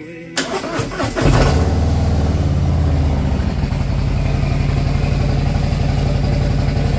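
2021 Harley-Davidson Road King's Milwaukee-Eight 107 V-twin cranking on the electric starter for about a second, then catching and settling into a steady idle.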